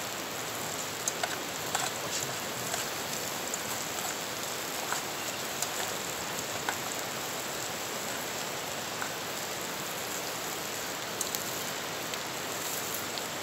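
Steady hiss with scattered crackles and pops from a campfire and the cast iron skillet frying over it, against rushing river rapids.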